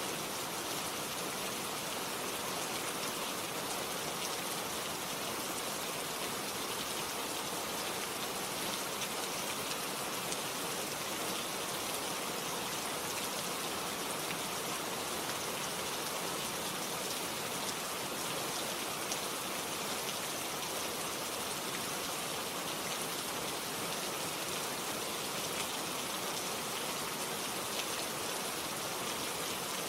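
Steady rain falling, an even hiss of many drops hitting a surface with faint individual drop ticks.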